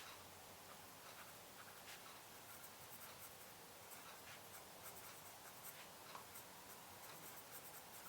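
Faint, irregular soft clicks and taps of quiet work at a desk, such as typing or writing, coming thicker through the middle.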